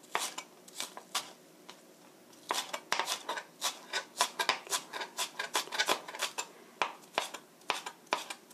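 Chef's knife mincing green onion on a plastic cutting board: sharp knife strikes against the board, a few at first, then after a short pause a fast run of about four strikes a second.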